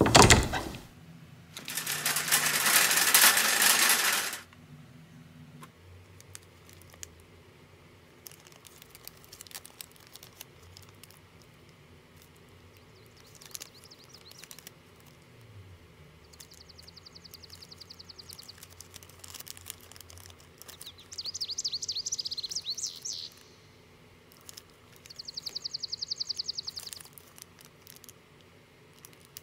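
Faint plastic crinkling and small clicks as miniature toy groceries are handled and taken out of a tiny plastic shopping bag. A sharp sound at the start and a loud rush of noise lasting about two seconds come early, and a fast, high trill sounds three times in the second half.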